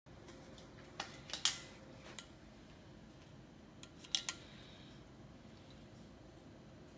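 A few light clicks and knocks from a small glass tumbler being picked up and handled: a cluster of about four around a second in, and two more close together about four seconds in, over a faint steady background hum.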